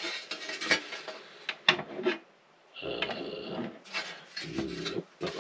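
Sheet-metal outer cover of an NVR recorder being handled and fitted against the steel chassis: metal scraping and rubbing with a few light knocks, and a short scraping squeal about three seconds in.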